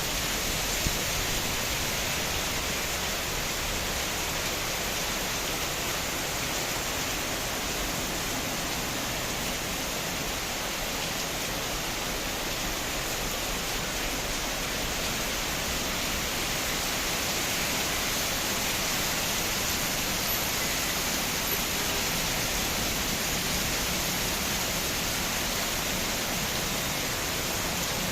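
Heavy rain falling steadily, an even rushing hiss, with a single sharp tap about a second in.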